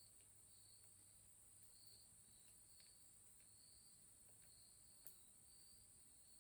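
Near silence: a faint steady high hiss with a soft high chirp repeating about once a second, and one faint click about five seconds in.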